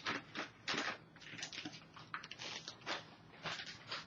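Plastic packaging crinkling and rustling in quick, irregular bursts as a new laptop LCD panel is unwrapped.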